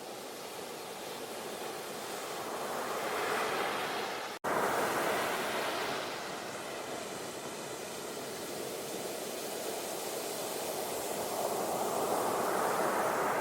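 Ocean waves breaking and washing ashore, swelling in two long surges about four and twelve seconds in and easing between them. About four seconds in, the sound cuts out for a split second.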